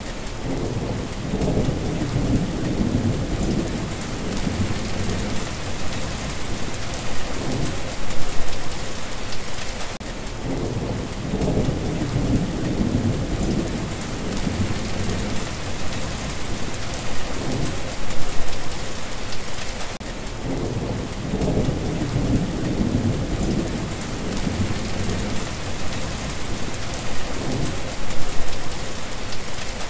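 Steady heavy rain hissing, with low rolling thunder rumbles that swell and fade about every ten seconds, in a repeating pattern.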